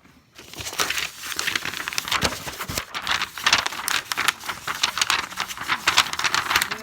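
Paper being crinkled and crumpled in the hands: a loud, dense crackling that starts about half a second in.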